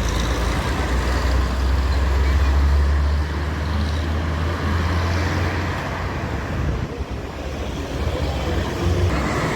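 Road traffic on a highway: vehicles passing with a steady rushing noise and a deep rumble that fades away about six seconds in.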